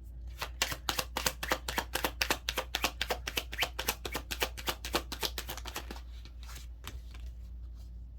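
A deck of tarot cards being shuffled by hand: a quick, dense run of papery card clicks for about six seconds, then a few single clicks as cards are handled.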